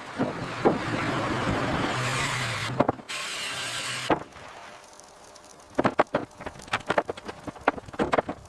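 A motorised tool runs with a loud, steady, hissing whir for about four seconds, breaking off briefly near the end, then stops. After a short lull comes a run of sharp, irregular knocks, like wood being struck.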